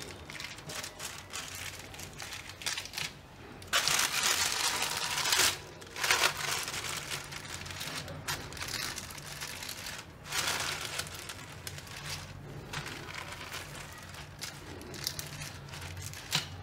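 Plastic sheet crinkling and rustling under a rolling pin as cashew dough is rolled flat between plastic. It comes in several irregular bursts of a second or two each, with quieter stretches between.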